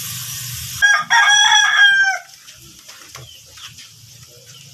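A rooster crowing once, loud, starting about a second in and lasting just over a second, its call ending in a falling tone.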